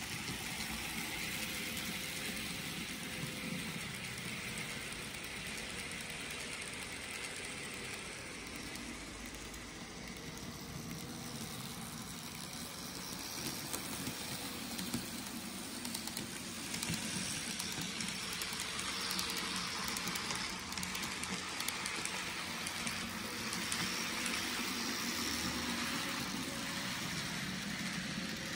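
N scale model train running on its track: the locomotives' small electric motors whirring and the hopper cars' wheels rolling on the rails, a steady noise that gets a little louder with light clicks in the second half as the train passes close.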